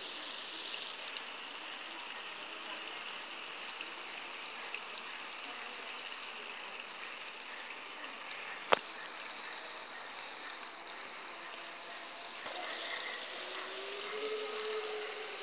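Steady outdoor background hiss with one sharp click about halfway through, and a faint wavering tone near the end.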